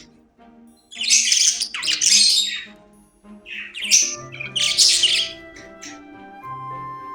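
Pet budgerigars giving harsh, scratchy squawks in two loud bursts, about a second in and again about four seconds in, over soft background music with long held notes.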